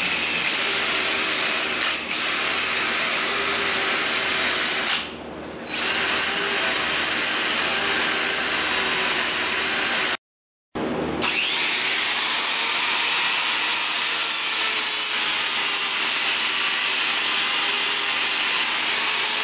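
Die grinder whining steadily at high speed as an abrasive wheel and a small sanding drum grind down the weld around a welded-on steel pin boss. The grinding eases off briefly about five seconds in, stops abruptly just after ten seconds, then starts again with a whine that rises in pitch as the grinder spins up.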